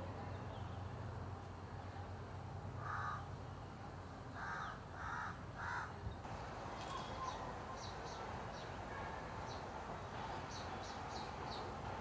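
A crow cawing: one harsh caw about three seconds in, then three more in quick succession. In the second half, high, thin chirps from a small bird come in short clusters.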